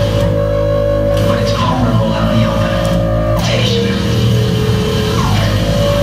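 Loud live noise music: a thick, steady drone with a held mid tone over a low hum, broken by tones that slide downward in pitch about a second and a half in, midway through, and again near the end.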